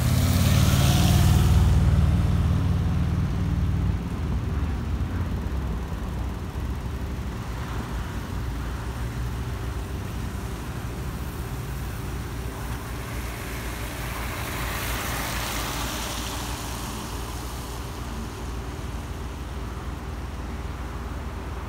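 A motorcycle passes close at the start, its engine loudest in the first two seconds and fading away by about four seconds. After that comes a steady low traffic rumble, with a vehicle's tyres hissing past on the wet road a little past halfway.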